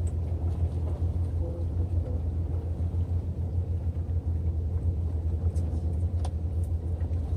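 Steady low rumble, with a couple of faint small clicks about five and six seconds in.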